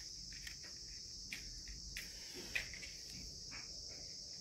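A steady high-pitched insect drone, with a few faint clicks of dry kindling being handled in a clay chulha stove.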